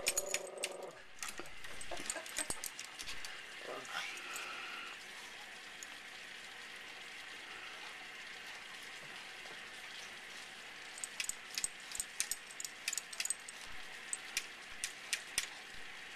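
A Yorkshire terrier's muzzle tapping and clicking against aquarium glass, a few taps early on and then a rapid irregular run of clicks in the second half, with a short high whine from the dog about four seconds in. Under it runs the steady hiss of the aquarium's bubbling air.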